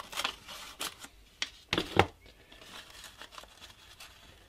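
Scissors snipping through a paper pattern sheet: several short cuts in the first two seconds, the loudest about two seconds in, followed by faint paper handling.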